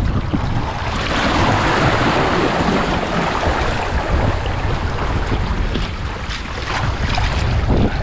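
Ocean surf breaking and washing up the shore, one wave swelling about a second in and fading, with wind buffeting the microphone throughout.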